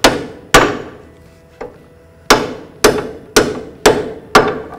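Hammer blows on the lower ball joint pinch bolt in a Ford Escape's front steering knuckle, driving the stuck bolt out: two sharp metal strikes, a pause of over a second, then five more about half a second apart, each ringing briefly.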